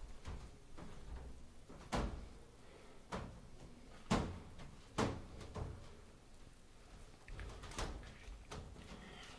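Puppies jostling in a wire dog crate: a handful of sharp knocks and rattles, about five, spread unevenly over several seconds, with low handling noise between them.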